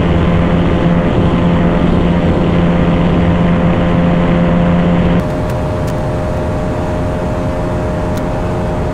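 Single-cylinder sport motorcycle engine running flat out at a steady high speed, its pitch holding level. About five seconds in it drops suddenly to a quieter, thinner drone.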